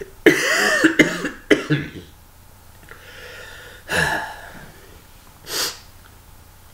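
A man coughing into his fist while ill: a loud cough followed by two short ones in the first two seconds, another cough about four seconds in, then a short breath near the end.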